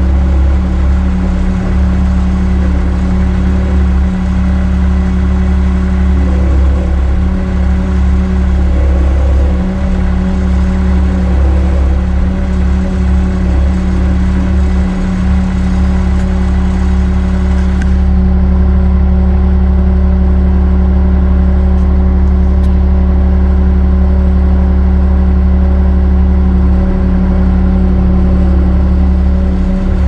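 Bobcat S185 skid-steer loader's Kubota four-cylinder diesel engine running at a steady speed, heard from inside the cab.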